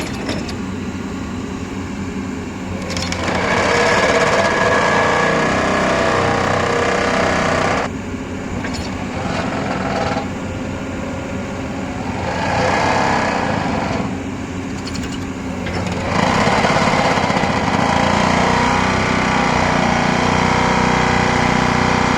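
Excavator-mounted hydraulic pile driver hammering rapidly in three long spells, about three, ten and sixteen seconds in, over the steady running of the excavator's engine.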